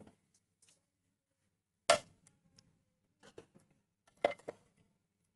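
A few sharp clicks and knocks as a steel mixer-grinder jar and its plastic lid are handled, the loudest about two seconds in, with near silence between them.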